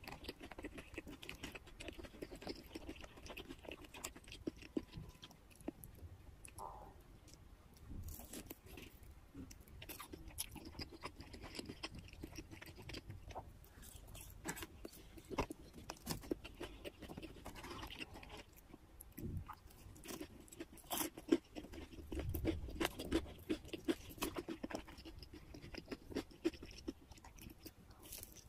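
Chewing of breaded fried chicken pieces coated in cheese sauce: a steady run of small crisp crunches and clicks as the crust is bitten and chewed.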